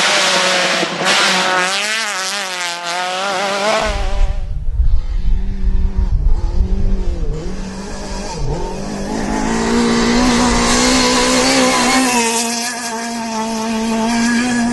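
Rally car engines at full throttle, the pitch climbing and dropping with gear changes and lifts. About four seconds in the sound cuts abruptly to another car with a heavy low rumble. In the second half a steady high engine note holds.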